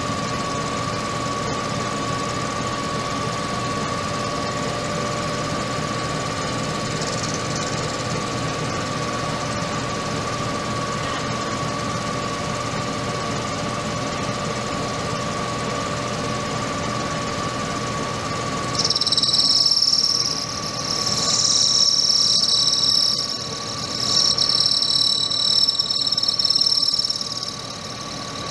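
Metal lathe running steadily. About two-thirds of the way in, a high-speed-steel thin-bit grooving tool cuts into the spinning part with a loud, high-pitched squeal in three stretches with short breaks, which stops shortly before the end.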